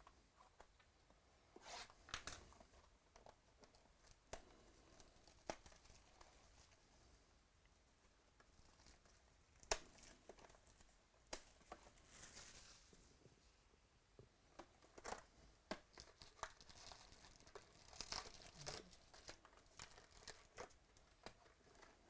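Trading-card pack wrappers being torn open and crinkled, heard as short bursts of tearing between scattered sharp clicks and taps as the cards are handled. Faint throughout.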